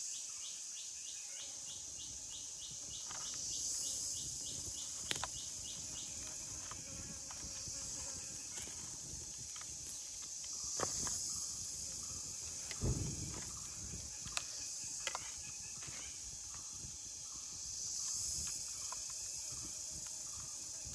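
Forest insects buzzing steadily in a high band, swelling and fading every several seconds, with a fast ticking chirp over the first few seconds. Scattered knocks and crackles from the campfire and from handling wood, the loudest about eleven and thirteen seconds in.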